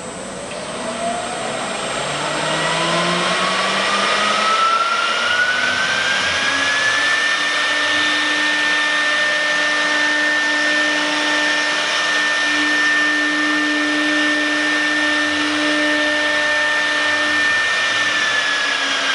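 CNC wood router's spindle motor whining as it spins up. The pitch rises smoothly over the first seven seconds or so, holds steady at speed, and starts to fall near the end.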